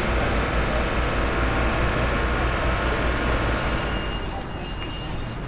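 Steady rumble of motor-vehicle traffic with a low, pulsing engine drone, dropping quieter and thinner about four seconds in.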